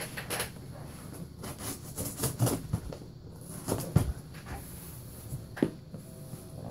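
Hands handling a taped cardboard shipping box, rubbing and scraping over its surface, with a few knocks against the cardboard, two of them sharp in the second half.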